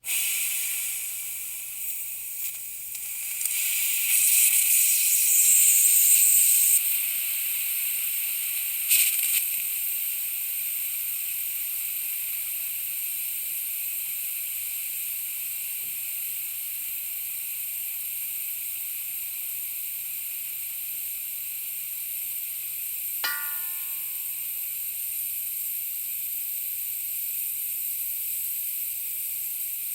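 Air escaping from a leak in a steady high hiss, swelling louder for a few seconds near the start and with a short spurt about nine seconds in. A brief squeak is heard once, well past the middle.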